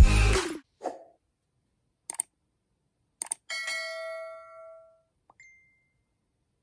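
Subscribe-button animation sound effects: two sharp clicks, then a bell chime that rings out and fades over about a second and a half, and a short high ding a little later. Before them, an electronic music sting cuts off about half a second in.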